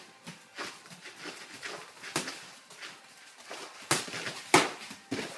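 Gloved punches and kicks landing in light kickboxing sparring: irregular sharp slaps and knocks, with feet thudding and shuffling on the mat. The hardest hit comes about four and a half seconds in.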